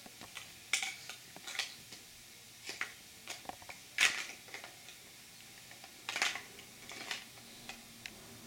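Large plastic toy building blocks clacking and knocking together as a crawling baby moves among them and handles them: a scattering of short clatters, the loudest about four seconds in.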